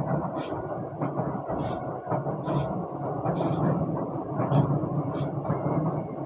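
Running noise inside an SMRT C151B North–South Line train cruising between stations: a steady rumble of wheels and motors, with a faint high hiss that comes and goes about once a second.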